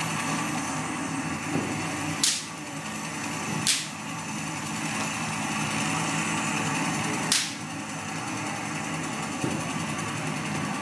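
A steady mechanical hum with three sharp clicks, a little over two seconds in, near four seconds and past seven seconds.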